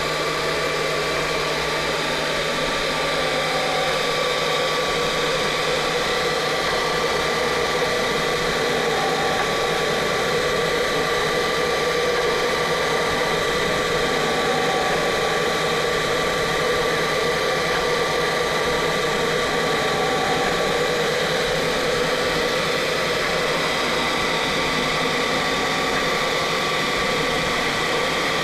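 A CNC router running a laser-engraving pass with its dust extraction on: a steady whirring, vacuum-like hiss with a thin steady whine above it and no change in pace.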